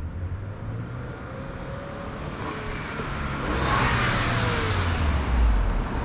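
A 2000 Honda Accord EX accelerates past with a clip-in turbo whistle in its exhaust pipe. Its hiss and whistle build to a peak about four seconds in, then drop in pitch as it moves away. Another car's deep engine rumble builds near the end.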